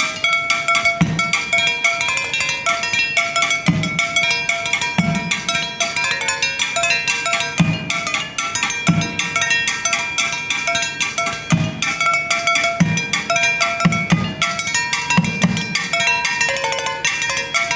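Drums and percussion playing: fast, dense strokes over a bass drum beating about once a second, with ringing metallic tones on top.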